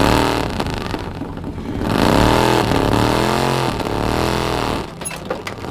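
Indian motorcycle engine being revved, rising and falling in pitch about three times.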